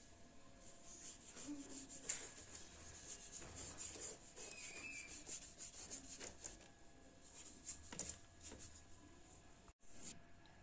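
Paintbrush strokes rubbing paint onto a plastic flowerpot: faint, irregular brushing, with one sharp tap about two seconds in.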